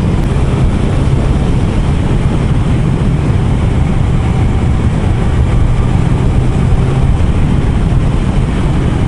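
Kawasaki sport motorcycle riding at a steady speed, recorded on board: a steady engine drone under heavy wind rush over the microphone.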